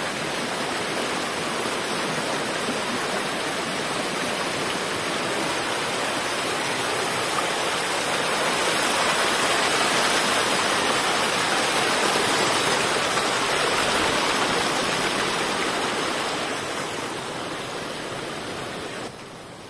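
Water of a small rocky stream cascading and splashing over stones, a steady rush that swells around the middle and fades away over the last few seconds.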